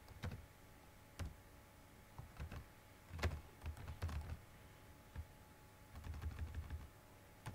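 Computer keyboard being typed on: irregular keystrokes, some single and some in quick runs, with short pauses between.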